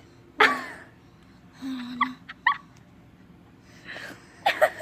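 Short non-speech vocal sounds from kids: a loud sudden burst about half a second in, a brief hum, then squeaky little laughs and breaths, with another short burst of them near the end.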